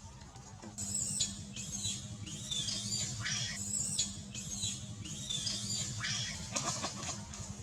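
Baby macaque squealing: a run of high-pitched, wavering squeaks and cries, repeated over several seconds, over a steady low hum.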